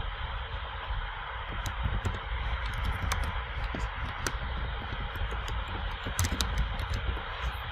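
Computer keyboard typing: a run of irregular keystroke clicks as an email address is typed, over a steady background hiss and low rumble.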